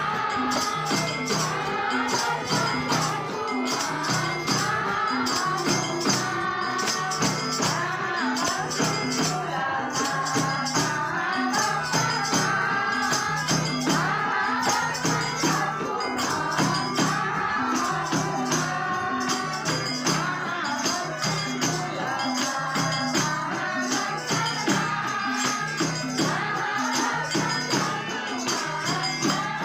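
Hindu devotional bhajan-kirtan: voices singing together over jingling hand percussion that keeps a steady, even beat.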